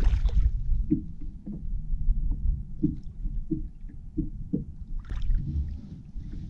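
Low rumble on a fishing boat with a string of light knocks, roughly one every half second to second, and a short hiss about five seconds in.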